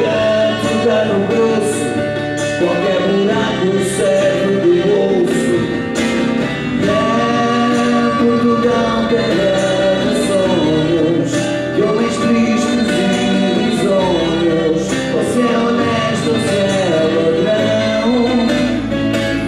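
Live band playing a song: drum kit with cymbal hits, acoustic and electric guitars, and a bending lead melody line over them.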